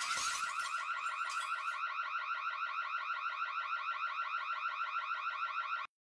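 Burglar alarm siren sounding: a fast electronic whoop that sweeps up several times a second, set off by a smashed window. Shattering glass fades out under it during the first couple of seconds. The siren cuts off suddenly near the end.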